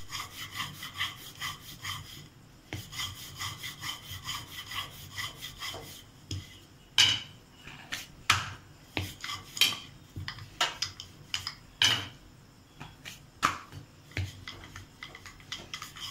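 Wooden rolling pin rolling out a thin roti of flour dough on a round board: a fast, rhythmic rubbing rattle for about the first six seconds, then scattered sharp knocks and taps of the pin and board as the dough is rolled and pressed.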